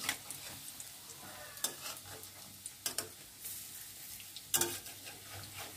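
Besan-and-soybean fritters sizzling steadily in hot mustard oil in a metal kadai. A spatula knocks and scrapes against the pan a few times as the fritters are turned.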